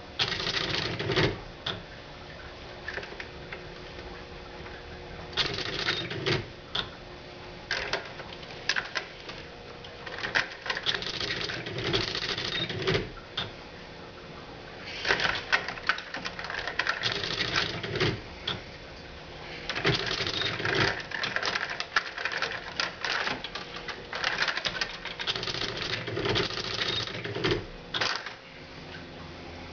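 Old Sears electronic typewriter driven by an Arduino, its print mechanism striking in rapid bursts about one to three seconds long with short pauses between.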